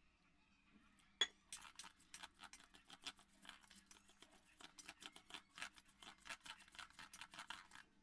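Thick gram-flour pakora batter being beaten by hand in a stainless steel bowl: quick, irregular wet slaps and small taps against the steel, several a second, with one sharper tap about a second in.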